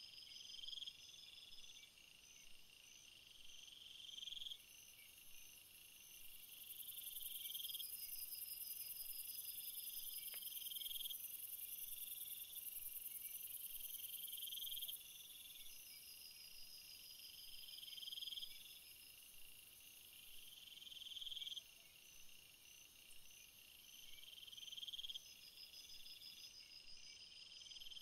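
Insects chirping faintly: repeated pulsed trills that swell and cut off every couple of seconds, over a steady high hiss.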